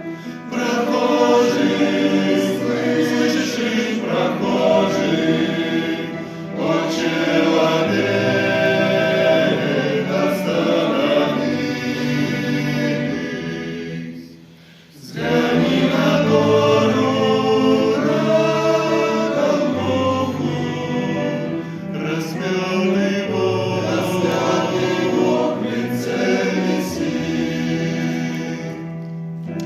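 Men's vocal ensemble singing a hymn in harmony, with a brief pause between phrases about halfway through.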